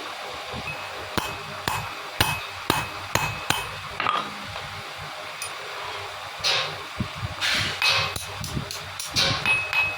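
Light metal taps, about two a second for a few seconds, some leaving a brief ringing tone. Later come several short scraping strokes.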